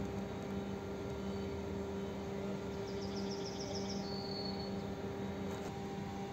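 A steady mechanical hum with a constant low drone over a background hiss. About three seconds in comes a short, rapid, high chirping trill, ending in a brief held whistle.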